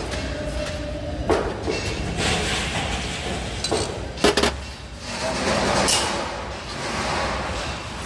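Metal clinks and knocks as a perforated steel channel strip is worked against a bent threaded ceiling rod to straighten it. The sharpest is a double knock about four seconds in, over a steady low rumble.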